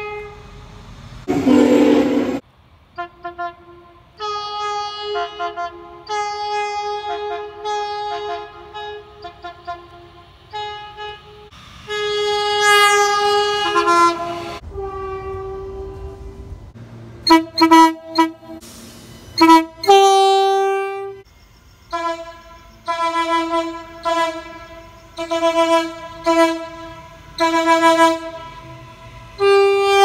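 A run of train horn soundings, one after another: multi-note horns giving short toots, quick repeated pips and a few longer blasts, with a louder, rougher blast about two seconds in.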